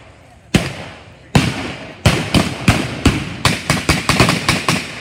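Small-arms gunfire firing blank rounds: two single shots about a second apart, then from about two seconds in a ragged string of shots, several a second, from more than one gun.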